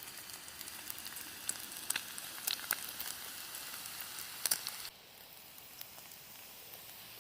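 Bacon sizzling in a frying pan, with sharp pops of spitting fat scattered through it. The sizzle drops noticeably quieter about five seconds in.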